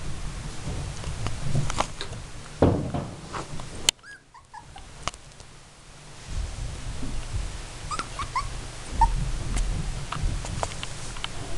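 Miniature dachshund puppies whimpering and giving several short, high, squeaky yips as they play.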